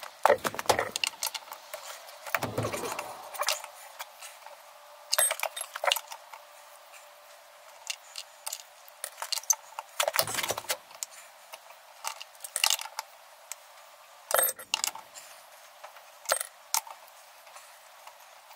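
Steel wheel brace clicking and clinking on a pickup's wheel nuts as they are undone, in irregular metallic clicks with a few heavier knocks.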